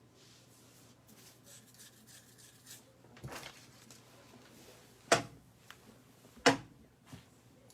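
Light rustling and handling noises, then two sharp knocks about a second and a half apart, with a smaller knock near the end.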